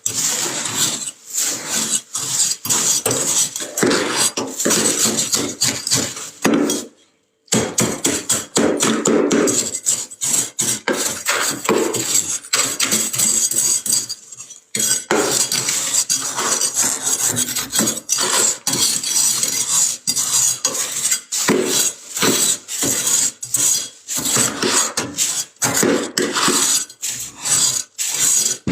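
Freezer frost being scraped in quick, rough, repeated strokes, several a second, with a brief silent break about seven seconds in.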